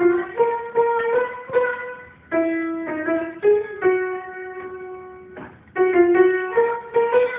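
A piano playing a simple melody of single notes, each struck and fading, with one note held for over a second about four seconds in.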